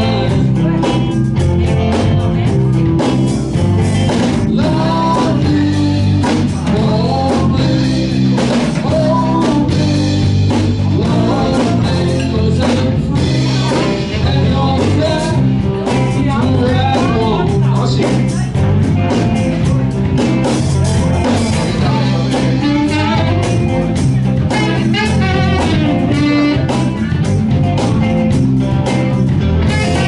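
Live band playing a blues number: a male singer over electric guitars, bass and drums, steady and loud throughout.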